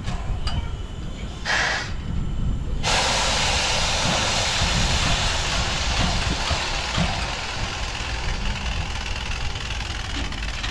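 Steam locomotive venting steam: a short hiss about a second and a half in, then a long, steady hiss that starts abruptly about three seconds in and eases off near the end, over a low rumble.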